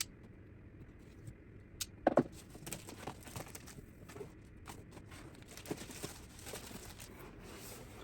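A power supply unit's box and packaging being opened by hand: faint rustling and crinkling with scattered small clicks, and a sharper knock about two seconds in.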